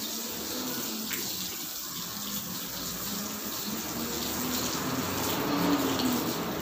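Water running from a garden hose and splashing onto the porch floor, a steady hiss.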